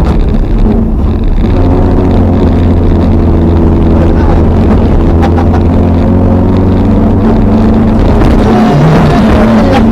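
Toyota RAV4's 3S-GE four-cylinder engine running hard under load, heard from inside the cabin: it holds steady high revs, drops briefly about eight and a half seconds in, then climbs again.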